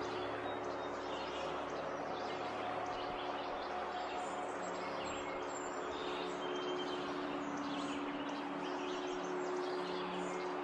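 Steady rush of the Beaverkill trout stream flowing, with birds chirping now and then and a steady low hum underneath.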